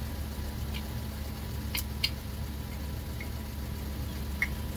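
Steady low motor hum, with a few light metallic clicks of a screwdriver prying a metal shim on a brake pad, about two seconds in and again near the end.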